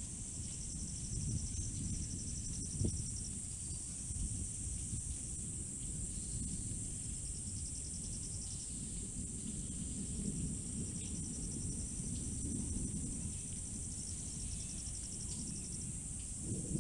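Night insects: a steady high-pitched insect drone, with crickets trilling in repeated stretches of a second to a few seconds. A low rumble of noise lies underneath.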